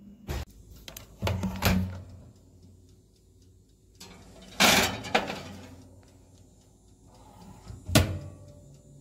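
Knocks and clatters of a metal cake pan being put into an Oster countertop toaster oven, the loudest about halfway through, then the oven's door shut with a sharp clack near the end.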